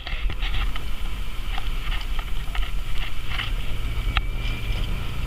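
Off-road vehicle driving over rough ground: the engine runs with a steady low rumble, and short knocks and rattles come through every second or so. A steadier low hum comes in about three and a half seconds in.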